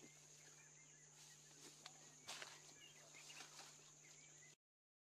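Very faint outdoor bush ambience: a steady high-pitched insect-like drone with small bird chirps and a couple of light clicks, cutting off abruptly to silence near the end.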